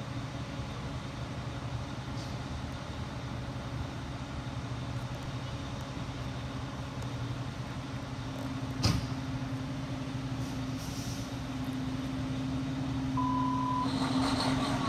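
Fire truck's diesel engine running steadily as the apparatus pulls slowly out, growing louder near the end. A single sharp click comes about nine seconds in, and a short beep sounds about a second before the end.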